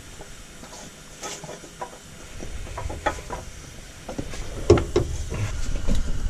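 Scattered metal clicks and knocks as a new CV axle shaft is worked into a Fiat 500's transmission to pop its retaining ring into place. The knocks come more often toward the end, with the loudest one about two-thirds of the way through.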